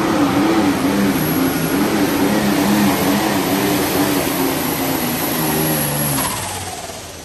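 Light Pro Stock pulling tractor's engine running hard under load as it drags the weight sled, its pitch wavering up and down. About six seconds in the engine sound drops away sharply.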